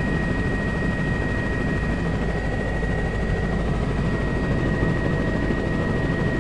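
Steady engine drone heard inside the cabin of a survey aircraft in flight, with a thin steady whine above it.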